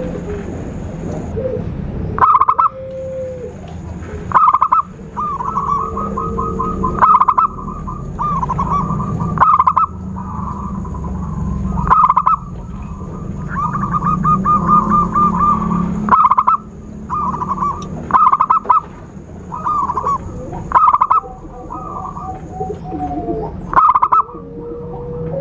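Zebra doves (perkutut) cooing in short staccato phrases every second or two, several breaking into quick stuttering trills, used as a lure call for wild doves. A steady low hum and a faint high steady tone lie underneath.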